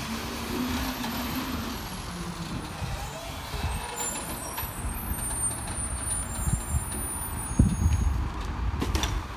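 Sterling LT7500 rear-loader garbage truck's diesel engine running as the truck drives along, a steady low rumble with a louder knock a little before the end.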